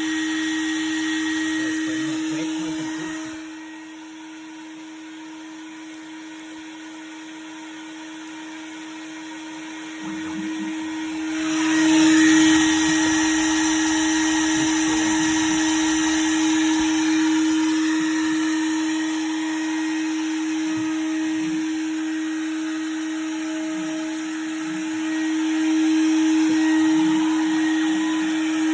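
Spindle of a home-built mini CNC mill running at a steady high whine while milling brass. It drops quieter for several seconds early on, then the cutting grows louder with a harsh hiss about ten seconds in and stays at that level.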